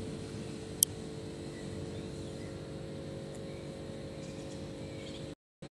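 Steady machine hum with several held low tones over faint street noise, broken by a single sharp click about a second in; the sound cuts off abruptly near the end.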